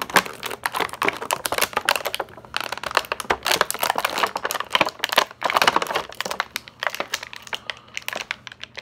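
Clear plastic packaging bag crinkling in quick, irregular crackles as hands work an action figure out of it, a tight fit that is hard to get out.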